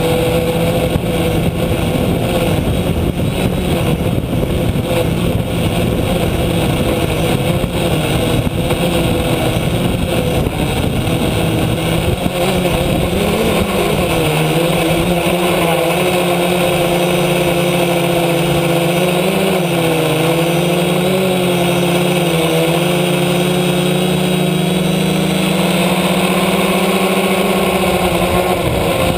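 Close, steady drone of an F450 quadcopter's four electric motors and propellers, heard from the camera on its frame, with air rushing past. The pitch shifts and wavers from about halfway through as the craft comes down and moves low over the grass.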